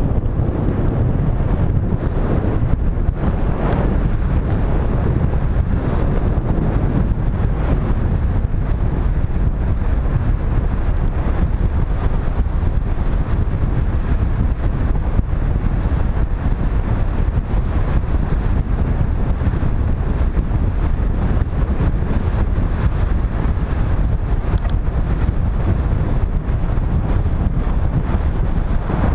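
Wind buffeting the microphone of a camera on a bicycle coasting fast downhill: a loud, steady low rumble.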